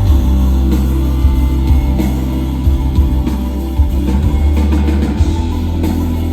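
Live concert music over the PA: an instrumental passage with a steady drum beat, heavy sustained bass and guitar, no vocals.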